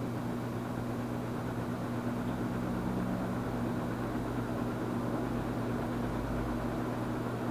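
Kichler 56-inch Industrial ceiling fan running steadily: a low motor hum under an even rush of air.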